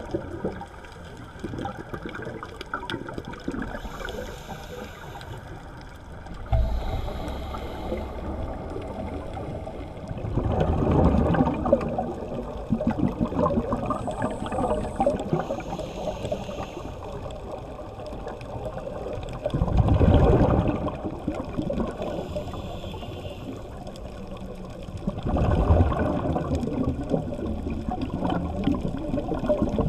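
Scuba diver breathing through a regulator underwater: exhaled bubbles rush out in three loud bursts several seconds apart, over a steady bed of underwater noise.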